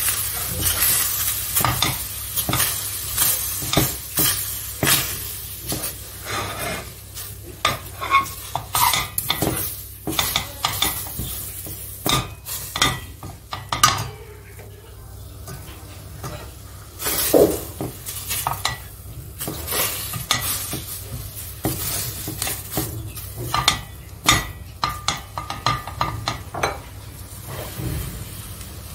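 A spoon stirring food in a pan, knocking and scraping against the pan again and again, while the food sizzles.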